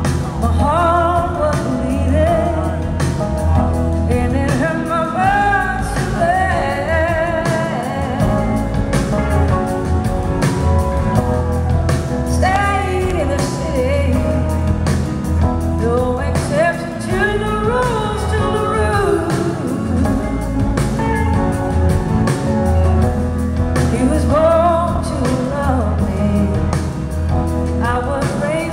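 Live blues-rock band performing, with a woman singing the lead vocal over electric guitar, a steady bass line and drums.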